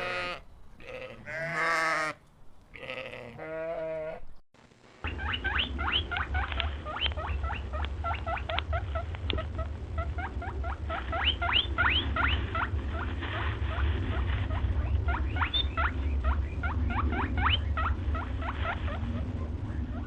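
For the first four seconds, livestock bleating in several pitched calls. After a cut, many small animals squeak at once in quick, short rising chirps over a steady low rumble.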